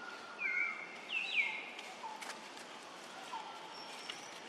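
Young macaque squealing: a few short, high-pitched calls that slide down in pitch, the loudest pair about a second in, followed by fainter, lower calls.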